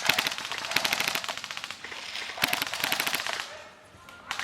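Tokyo Marui P90 airsoft electric gun firing on full auto: rapid clicking bursts of plastic BBs. The fire runs for about three and a half seconds, stops briefly, then starts again near the end.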